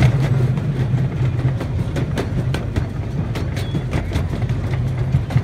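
Miniature ride-on train rolling along its track, heard from aboard an open car: a steady low rumble with irregular clicks and clacks from the wheels on the rails.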